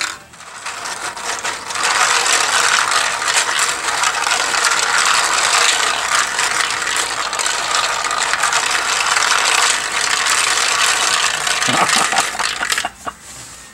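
3D-printed plastic marble maze being worked by hand: its Archimedes-screw lift is turned by the top knob while balls rattle and click along the plastic tracks. The dense rattle builds up over the first couple of seconds and stops shortly before the end, with a few last clicks.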